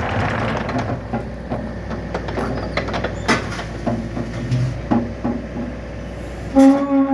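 Wacker Neuson compact excavator's diesel engine running steadily, with scattered knocks and clanks over it. About six and a half seconds in the engine sound drops away and a short pitched tone starts.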